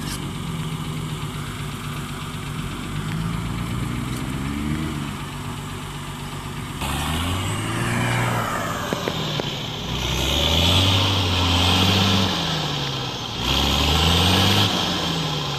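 Off-road vehicle engine running, then revving up and falling back in several bursts a second or two long, louder in the second half.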